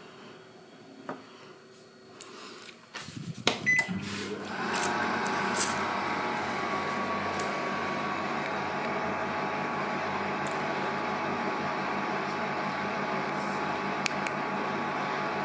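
A few clicks and knocks and a short beep three to four seconds in, then a kitchen appliance starts and runs with a steady hum.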